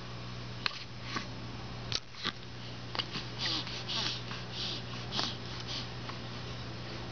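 A baby's sniffs and short hissy breaths, several in a row a few seconds in, with a few faint clicks over a steady low hum.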